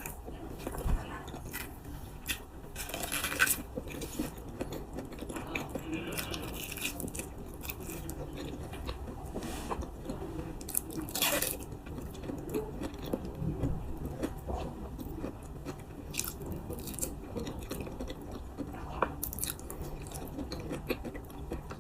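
Close-up mouth sounds of a person chewing soft durian flesh, with scattered sharp clicks and smacks.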